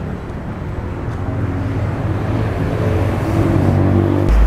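Road traffic: a motor vehicle's engine running steadily, growing louder, with a deep rumble coming in near the end.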